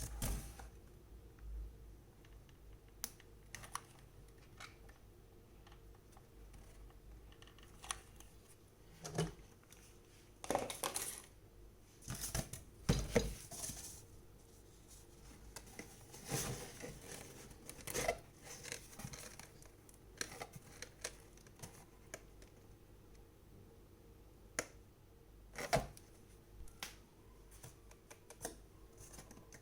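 Cardboard being handled and glued: scattered light taps, clicks and rustles, with a cluster of louder rustling scrapes about a third of the way through.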